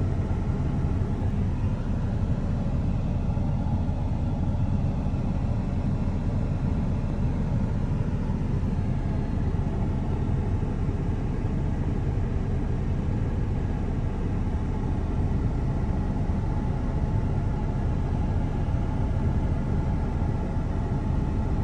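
Steady low rumble with a few faint steady tones above it, unchanging throughout.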